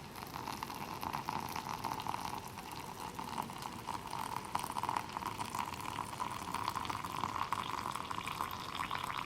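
Boiling water being poured in a steady stream into a food pot, filling it up to the fill line on the inside.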